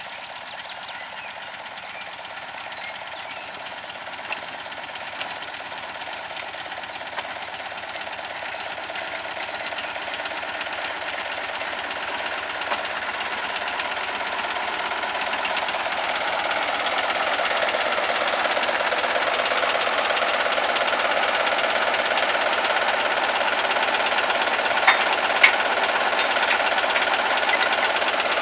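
Engine of a small narrow-gauge diesel locomotive running and growing steadily louder as the locomotive approaches. Two short sharp knocks stand out a few seconds before the end.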